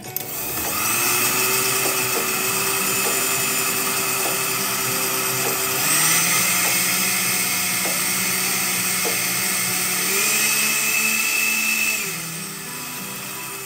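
A small electric motor starts up and runs steadily. Its pitch steps up about six seconds in and again about ten seconds in, then it drops to a quieter, lower hum near the end.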